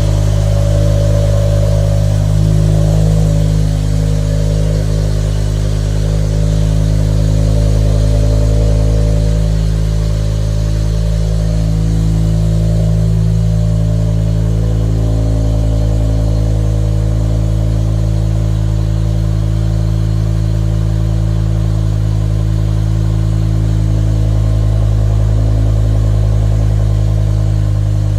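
Stock 2006 BMW M6's S85 V10 running at a steady idle through its stock exhaust, with slight swells in loudness early on.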